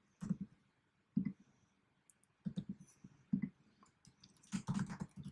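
Computer keyboard typing: short clusters of key clicks with pauses between them, fairly faint.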